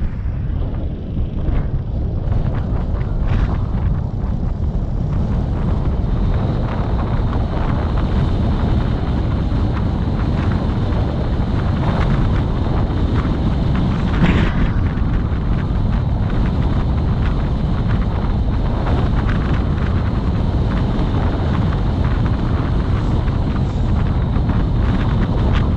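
Wind buffeting the microphone of a moving road vehicle, a steady deep rumble with the vehicle's road and engine noise beneath it. A brief louder rush comes about halfway through.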